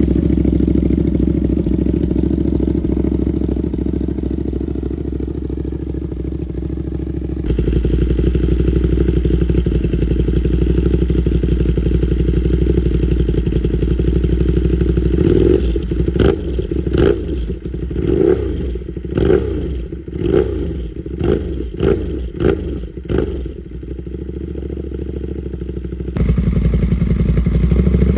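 Ducati Panigale V2's 955 cc Superquadro twin-cylinder engine idling through a full titanium Vandemon exhaust, then given a quick run of about eight throttle blips with sharp cracks between them, before settling back to idle.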